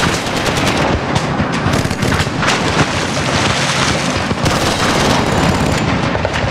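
Heavy battle gunfire: machine guns and rifles firing rapidly and without pause, shot after shot.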